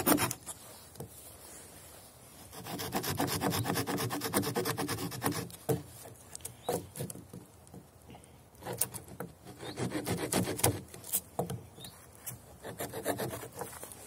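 The small saw blade of a Stanley multi-tool cutting a thin stick of wood in quick short strokes. It goes in three bouts with pauses between them, and a few knocks in the pauses as the stick is repositioned.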